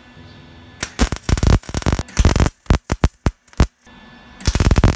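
MIG welder tack-welding a steel square-tubing frame: bursts of arc crackle, a longer run about a second in, then a string of short quick tacks, and one more burst near the end.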